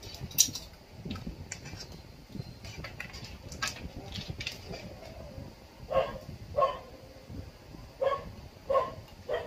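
A dog barking five times in short, sharp barks through the second half. Before that come clicks and rustles of cables being handled, with one sharp click about half a second in.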